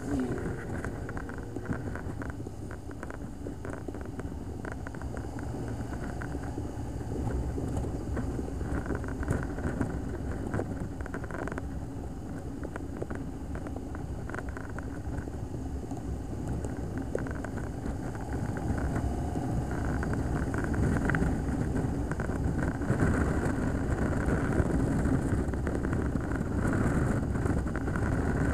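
Touring motorcycle underway, heard from a camera mounted on the bike: steady engine, road and wind noise that grows gradually louder through the second half as it picks up speed.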